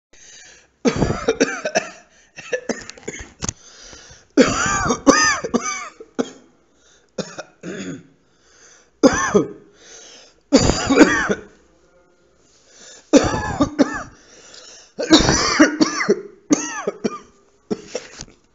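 A person coughing repeatedly in short fits of a few coughs each, with brief pauses between fits; many of the coughs are voiced.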